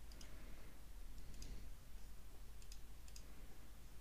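Faint computer mouse clicks, about five scattered short clicks, over a low steady hum.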